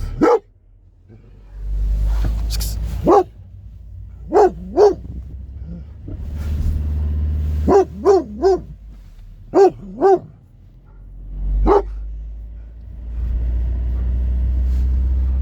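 A beauceron barking in short deep barks, about ten in all: single barks and quick runs of two or three, with pauses between. A low steady rumble runs underneath.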